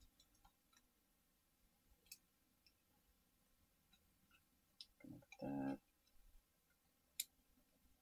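Near silence broken by faint clicks and taps of a plastic video doorbell being handled and fitted against its wall bracket. A short louder sound comes about five seconds in, and a sharp click about seven seconds in.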